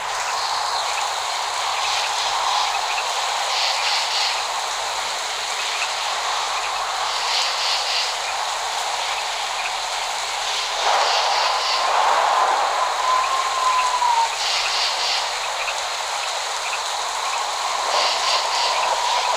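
Steady hiss of rain, with short high-pitched bursts every few seconds and a faint wavering tone around the middle. No thunder rumble.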